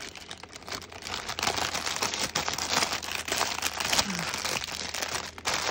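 Clear plastic sleeve holding packets of diamond-painting drills crinkling and rustling irregularly as it is handled.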